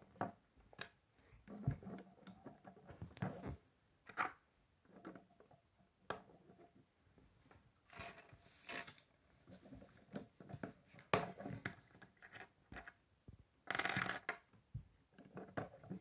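Plastic K'nex rods and connectors clicking and snapping together as they are fitted by hand, in scattered short clicks and knocks. A brief louder rustle of handled pieces comes near the end.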